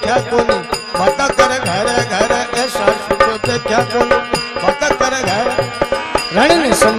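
Instrumental interlude of a Rajasthani folk bhajan: a harmonium plays the melody over held notes, with hand-drum strokes whose low notes bend up and down in pitch.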